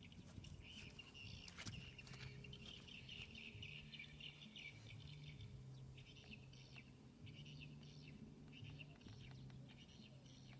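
Faint bird chirping in repeated short bursts over a low, intermittent hum.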